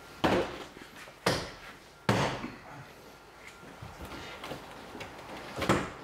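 Plastic door-panel clips on a Chevy Silverado's interior door trim panel snapping into the door as the panel is pressed home by hand. There are four sharp snaps: three about a second apart, then one more near the end.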